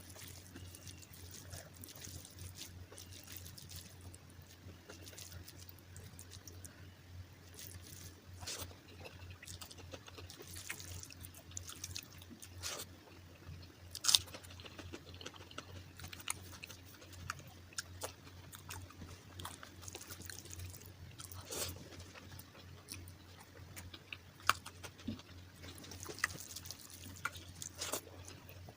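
Close-miked chewing and mouth sounds of a person eating, with many irregular wet clicks and an occasional sharper crunch, the sharpest about halfway through, over a steady low hum.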